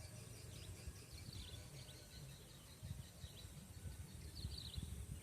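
Faint outdoor ambience: a few short, high bird chirps over an uneven low rumble, with a steady faint high hiss or hum behind.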